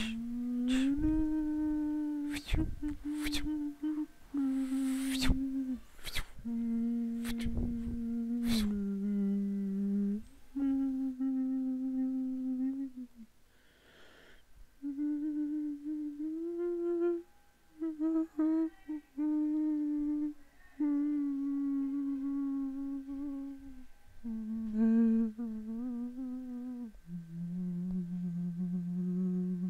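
A man's voice humming a slow melody a cappella in long held notes, standing in for the film's mournful score. Several sharp mouth-made clicks or puffs cut across the humming in the first nine seconds.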